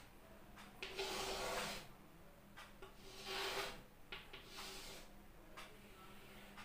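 Chalk scraping on a blackboard as lines are drawn: three longer scratchy strokes, the first lasting about a second, with a few short ticks between them.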